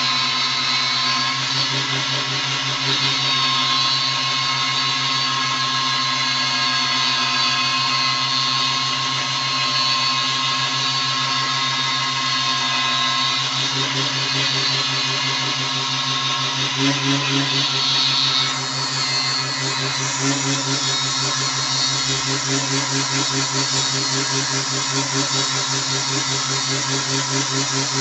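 A 150-watt, 12–24 V mini wood lathe running steadily, its motor and drill chuck spinning a wooden spindle while a hand-held chisel scrapes and shaves the turning wood. The hiss of the cut changes about two-thirds of the way through.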